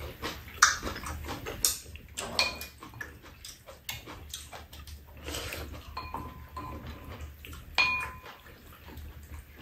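Chopsticks and spoons clicking and scraping against bowls during a meal. A few clinks ring briefly, and the loudest comes about half a second in.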